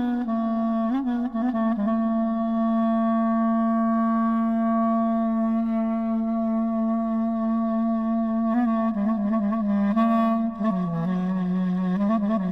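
Background music: a solo wind instrument playing a slow, ornamented melody, with quick runs at first and near the end and one long low note held for about six seconds in the middle.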